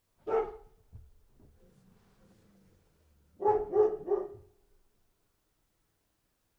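Dog barking: a single bark, then about three seconds later a quick run of three barks.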